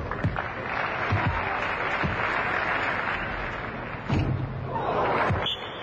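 Arena crowd applauding, in a swell lasting from about one to three and a half seconds and a second shorter one near the end, with a few low thuds of a basketball bouncing on the hardwood court.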